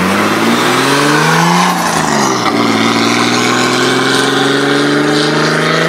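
Car engine accelerating hard: its pitch climbs, drops briefly about two seconds in as it shifts gear, then climbs steadily again.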